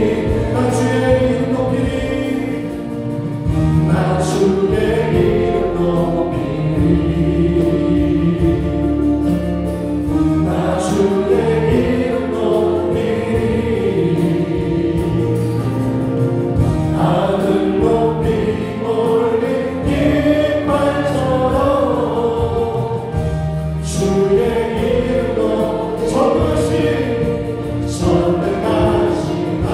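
Church worship band playing a gospel praise song, with a Yamaha Montage 8 keyboard, a second keyboard, bass guitar and drums, and a group of voices singing along. Cymbal crashes come every few seconds.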